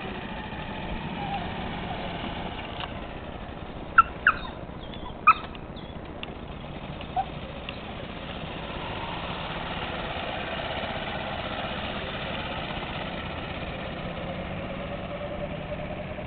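The engine of a 2004 gas utility golf cart running steadily as the cart drives away, its hum strongest in the first couple of seconds. A few short, sharp, high chirps sound about four to five seconds in, with one more a couple of seconds later.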